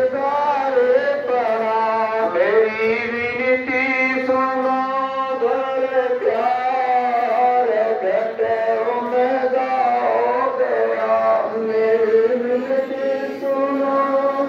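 Hindi devotional chant sung to a slow melody, with long drawn-out notes that bend in pitch over a steady low drone.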